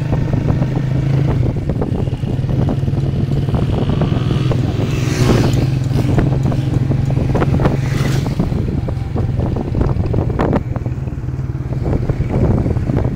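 Motorcycle engine running at a steady road speed, heard from on the bike, with wind buffeting the microphone. A brief rush of noise about five seconds in.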